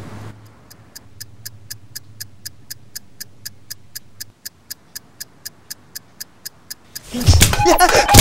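Alarm clock ticking steadily, about three sharp ticks a second. A sudden loud burst of noise with sliding pitches cuts in about a second before the end.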